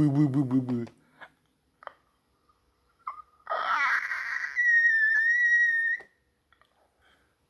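A low, wavering sung note ends about a second in. After a pause, a voice sweeps sharply upward into a very high whistle-register note, held steady for about a second and a half before it stops.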